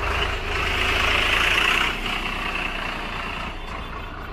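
Tractor diesel engine idling with a steady low hum. A louder rushing noise lies over it for about the first two seconds, then fades.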